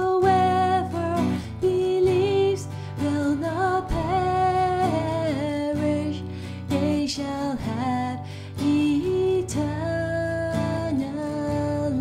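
A woman singing a slow worship song with long held notes, accompanied by a strummed acoustic guitar.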